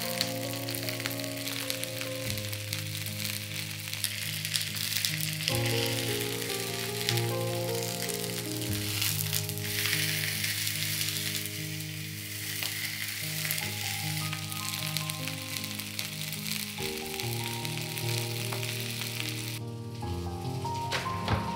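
Cauliflower steaks sizzling steadily in hot oil in a cast iron skillet, stopping near the end. Background music plays throughout.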